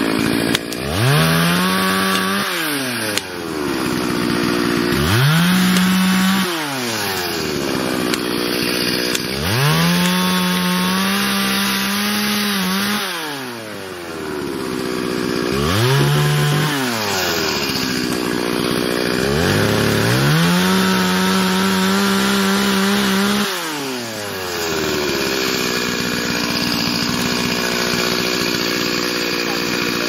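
Two-stroke chainsaw revved up to full throttle five times, each burst held for about two to four seconds before dropping back, then idling more steadily through the last few seconds.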